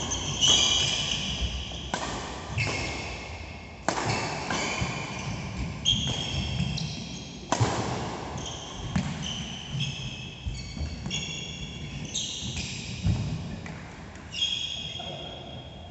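Badminton doubles rally: rackets striking the shuttlecock with sharp cracks, about ten hits at one to two second intervals, with short high squeaks of shoes on the court floor between the hits.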